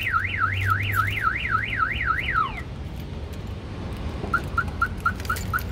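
Car alarm siren sweeping rapidly up and down, about four sweeps a second, that cuts off with a falling tone about two and a half seconds in. Near the end comes a quick run of six short beeps.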